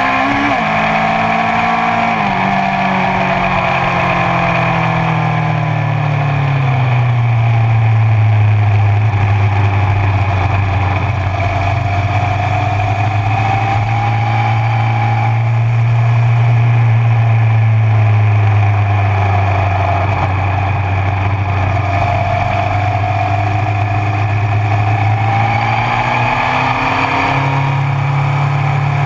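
Honda CB1000R inline-four motorcycle engine running at speed on a track, heard from a camera mounted beside the rear wheel and chain, over steady wind and road noise. Its pitch rises and falls slowly as the bike accelerates and slows, with abrupt steps about two seconds in and near the end.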